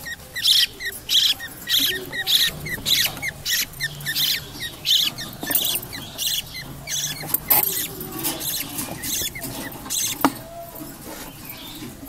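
Unfeathered parrot chicks giving high, squeaky cheeping calls, two or three a second, thinning out in the second half. A single sharp knock sounds about ten seconds in.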